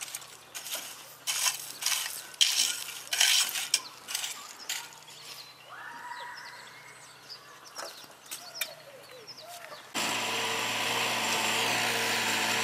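Metal rakes scraping through crushed stone, in irregular strokes. About ten seconds in, a mini excavator's engine takes over, running steadily.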